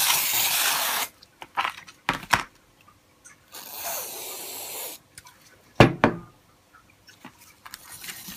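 Aerosol brake cleaner sprayed onto brake pads in a plastic tub: a loud hiss lasting about a second, then a second, quieter hiss a few seconds later. A few sharp knocks fall between the sprays, and scratchy scrubbing starts near the end.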